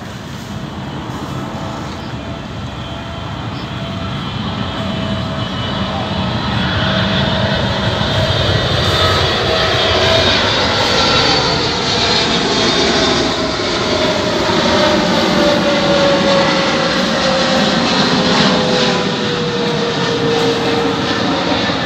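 Boeing 777-300ER's two GE90-115B turbofans on landing approach, passing low overhead. The jet noise builds over the first ten seconds with a high fan whine, then a steady tone drops slowly in pitch as the airliner flies away.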